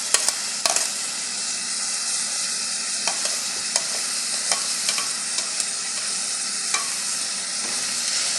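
Diced onion, hot pepper and freshly added pimento peppers sizzling steadily in a frying pan, with a few sharp clicks of a utensil stirring against the pan.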